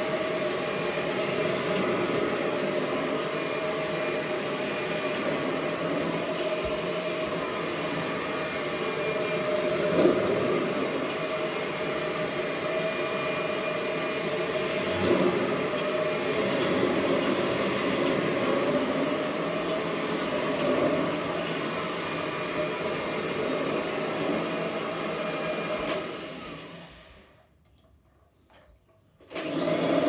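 Kirby G Series upright vacuum cleaner running steadily while it is pushed back and forth over carpet, sucking up grass clippings, with two brief knocks along the way. About 26 seconds in its motor is switched off and dies away to near silence, and a loud noise cuts back in right at the end.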